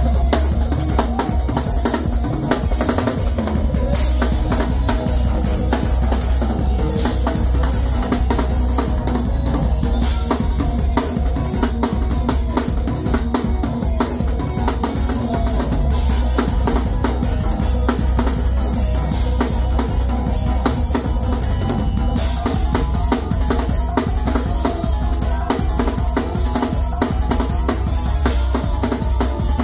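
Acoustic drum kit played hard: kick drum, snare and rim shots driving a groove with cymbals over a steady deep bass.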